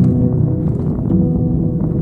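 Background music: slow, sustained ringing notes that change every second or so.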